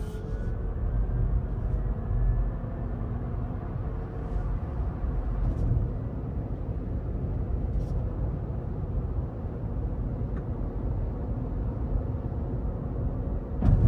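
Cabin sound of a Rivian R1T electric pickup on the move: a steady low road and tyre rumble with a faint steady whine above it. A single sharp thump near the end.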